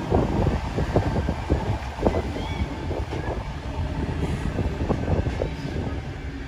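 Double-deck electric suburban trains running over the tracks, a steady rail rumble broken by irregular wheel clicks and knocks.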